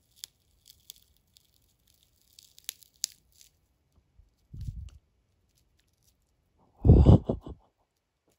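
Dry, sticky cannabis bud (Dosido) being pulled apart by hand close to the microphone: a run of small crackles and crunches, then a dull thump, and near the end a loud low rumble.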